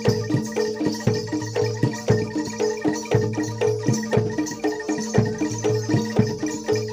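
Javanese gamelan music accompanying a kuda lumping dance: struck metal keyed instruments play a repeating melody over sharp hand-drum strokes and jingling percussion, in a steady fast rhythm.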